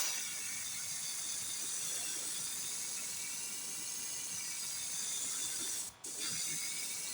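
Airbrush spraying paint with a steady hiss, which stops for a moment about six seconds in as the trigger is let off, then starts again.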